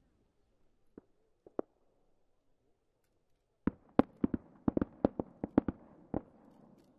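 Fireworks going off: two faint pops about a second in, then about a dozen sharp bangs in quick, uneven succession over some two and a half seconds from a little past halfway.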